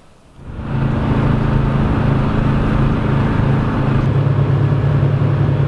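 Gator utility vehicle's engine running steadily as it drives along, a low even drone with wind and road noise over it. It starts about half a second in.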